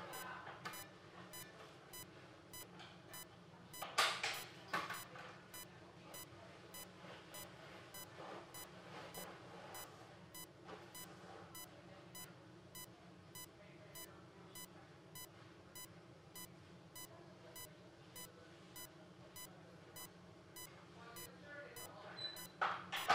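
A bedside patient monitor beeping in a steady, regular rhythm: the pulse tone of an ICU monitor. A brief louder rustle of handling noise comes about four seconds in and again near the end.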